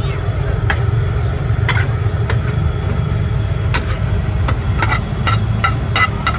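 Metal spatula clinking and scraping against a frying pan as noodles and vegetables are stir-fried. The strikes come irregularly, about every half second to second, over a steady low hum.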